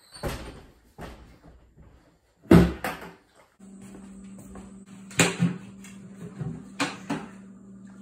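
Knocks and clatter of a plastic bucket being handled and set down on a tiled floor, the loudest knock about two and a half seconds in, then a sharp knock near the end as its plastic lid is pulled off. A steady low hum comes in about halfway through.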